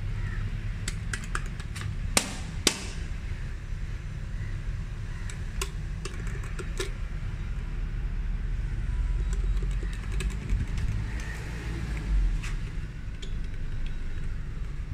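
Lift call buttons being pressed, giving a series of sharp clicks, two of them loud about two seconds in, over a steady low rumble.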